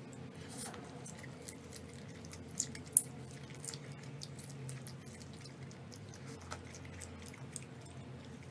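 Close-miked eating of saucy instant noodles: wet chewing and mouth clicks, with scattered sharp clicks and one louder click about three seconds in, over a steady low hum.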